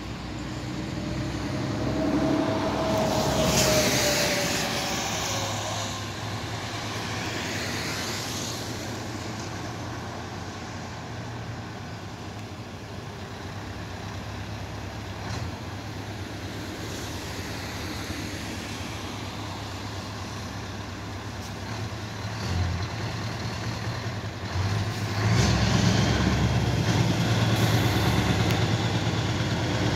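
Scania V8 truck engine with an open, unsilenced exhaust, giving a steady low rumble as it pulls a loaded low-loader at low speed. It gets clearly louder about 25 seconds in as the truck turns close by. A couple of other vehicles swish past in the first several seconds, the loudest of them about four seconds in.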